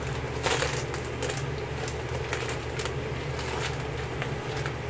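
Plastic packaging crinkling and rustling as it is handled, a scatter of short crackles over a low steady hum.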